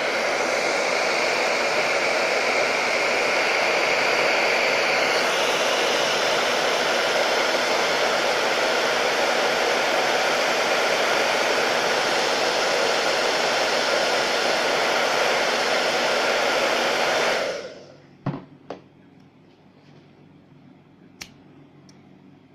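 Hair dryer blowing steadily on the edge of a laptop screen to soften the display adhesive, then switched off about three-quarters of the way through. A few light taps and clicks follow.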